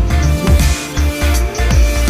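Background electronic music with a heavy pulsing bass beat; a held synth note slides down near the start and glides back up toward the end.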